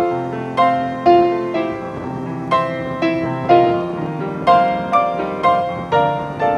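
Background piano music: a slow melody with a struck note about every half second, each dying away.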